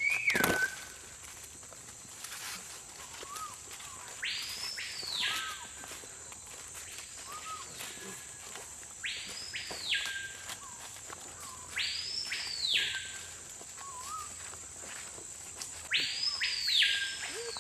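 Rainforest ambience: a bird repeats a loud whistled call every few seconds, each call sweeping steeply up and falling back, over a steady high-pitched insect drone. There is a sharp knock right at the start.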